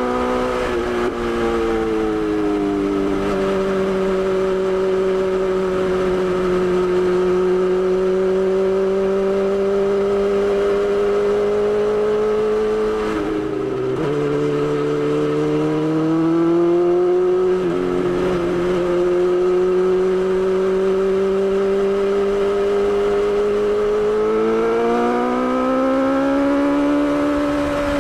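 BMW S1000XR's inline-four engine running under way. Its pitch eases down over the first few seconds, holds steady, dips briefly twice in the middle, and climbs again near the end as it accelerates, under a steady rush of wind noise.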